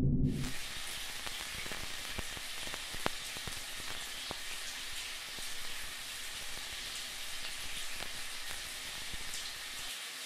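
A dense, steady crackling hiss, like heavy rain on a surface or fat sizzling, with scattered sharp clicks through it; it cuts in suddenly at the start and stops abruptly near the end.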